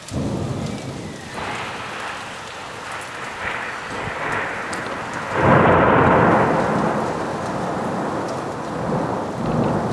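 Thunder rolling during a thunderstorm: a rumble starts suddenly, builds, then swells abruptly into a louder peal about halfway through that rolls on and slowly eases.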